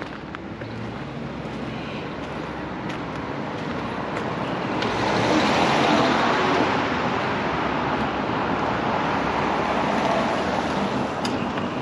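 Road traffic noise: a vehicle passing, the rush of its tyres swelling about five seconds in and staying loud before easing off.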